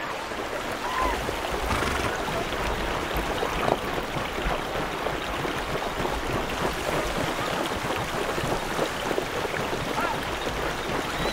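Fast river water rushing and splashing around pack horses and donkeys wading across it, a steady dense wash, with a couple of short calls rising over it about a second in and near the end.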